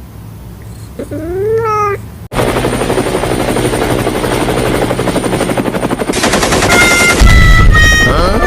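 A cat-like meow, rising then falling in pitch, followed by an abrupt cut to a loud, fast rattling clatter that runs on, with a few steady tones joining near the end.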